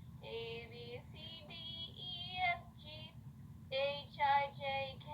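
A girl's high voice singing a tune in short, separate held notes.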